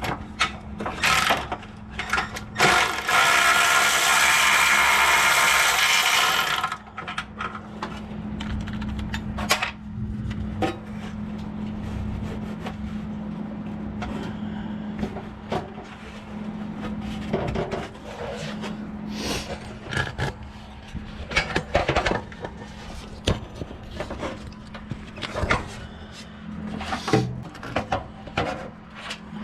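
A power tool runs in one loud burst of about four seconds, a few seconds in. Scattered clicks and knocks of hand tools on metal follow, over a steady low hum.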